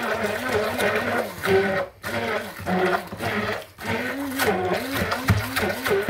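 Corded electric hand mixer running as it beats egg into thick choux pastry dough. Its motor pitch rises and falls over and over as the beaters drag through the stiff dough, and the swings come quicker in the second half.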